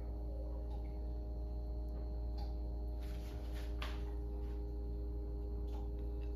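A steady hum made of a deep drone and several steady tones, with a few faint clicks and a brief hiss about three to four seconds in.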